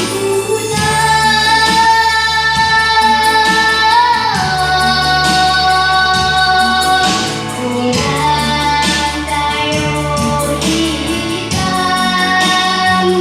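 A girl singing a slow song in long held notes over instrumental accompaniment with a steady bass and an even beat.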